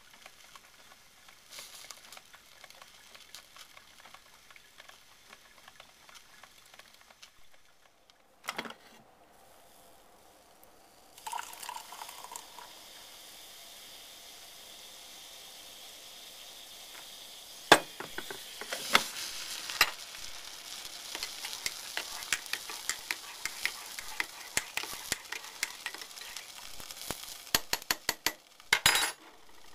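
A metal spoon stirring coffee in a ceramic mug, clinking sharply and repeatedly against the sides, over a steady faint hiss. There is a single knock earlier on.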